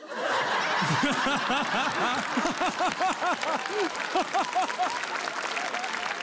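Studio audience laughing and applauding: quick ha-ha laughter over steady clapping, the laughter thinning out about five seconds in while the clapping goes on.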